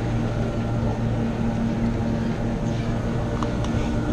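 Chairlift drive machinery humming steadily at the station, with a few light clicks about three and a half seconds in.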